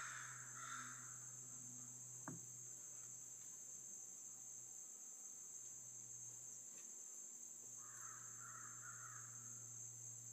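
Faint, steady high-pitched chorus of insects in summer woodland, with a low steady hum underneath. A soft click comes about two seconds in.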